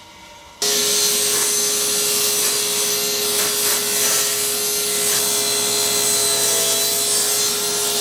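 A woodworking power tool switches on abruptly and runs at a steady pitch, a constant hum under a loud hiss, with no change in load.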